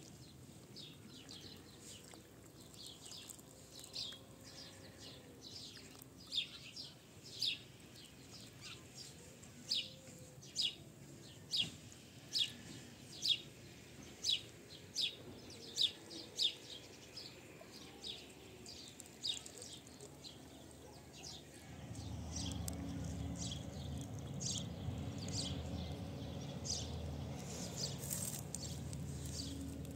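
A small bird chirping over and over, short high chirps about once a second, loudest in the middle stretch. About two-thirds of the way through, a low steady rumble comes in underneath.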